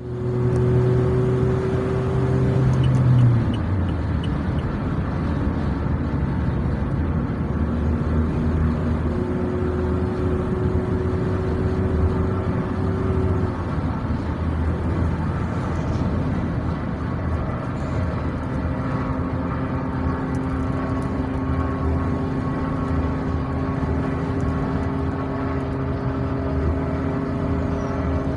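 Luragung Asri intercity bus engine running through its exhaust, a continuous loud drone whose pitch holds steady for a few seconds at a time and shifts several times as engine speed changes.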